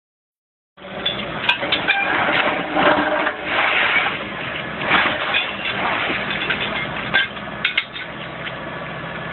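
Railway track-renewal machinery running, a steady mechanical hum under irregular metallic clanks and sharp knocks.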